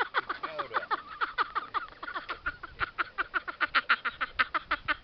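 A rapid, even series of short chirping animal calls, about eight a second. The first calls each sweep quickly downward, and the later ones hold steadier and higher.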